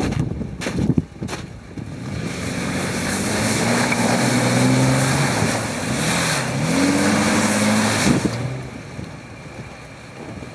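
Off-road vehicle engine revving under load, its pitch climbing, dipping and climbing again for several seconds before it drops away, with a few sharp knocks at the start.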